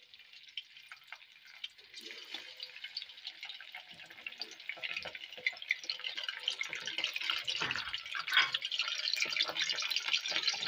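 Hot oil sizzling and crackling around coated chicken drumsticks deep-frying in an aluminium pan. It starts faint and grows louder and busier as more pieces go into the oil.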